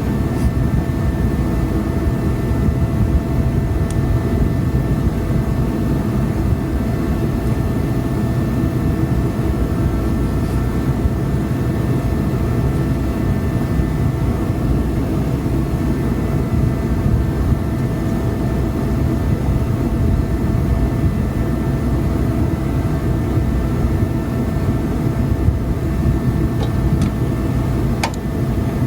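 Forced-air shop heater running steadily: a loud rush of air and burner with a few steady whining tones from its fan.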